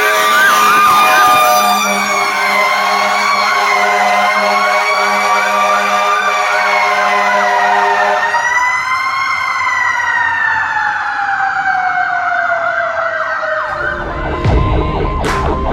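Fire truck sirens sounding together. A Federal Q2B mechanical siren wails and then winds down slowly in pitch over an electronic siren's fast yelp, with a steady lower horn-like tone under them for about the first eight seconds. A low rumble comes in near the end.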